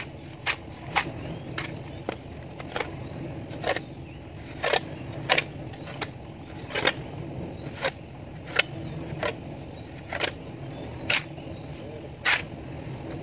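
Steel plastering trowels scraping and slapping wet cement render on a brick wall: short sharp strokes at irregular intervals, about one or two a second, over a steady low hum.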